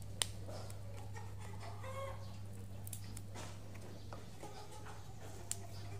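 Quiet handling of red chilies on a stone cobek (mortar) over a steady low hum, with a sharp click just after the start and a smaller one near the end. Faint short calls sound in the background.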